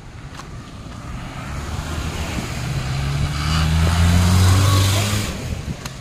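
Engine of a Maruti Gypsy safari jeep running close by. Its low drone grows louder to about four seconds in, then drops away.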